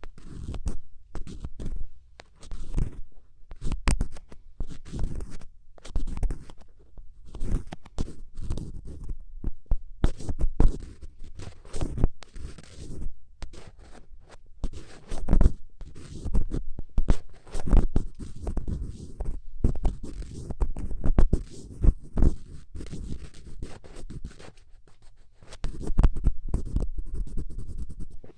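ASMR scratching: quick, irregular scratching strokes right at the microphone, each carrying a deep low rumble, continuing without pause.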